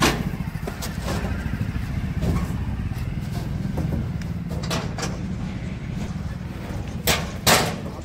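Diesel tractor engine idling steadily, with a few sharp knocks, two loud ones close together near the end, as a plastic jerrycan is handled and lifted off a metal trolley.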